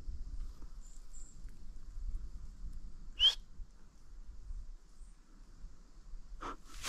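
A single short, sharp whistle about three seconds in, over a faint steady high hiss and light wind rumble. A brief burst of rustling noise comes at the very end.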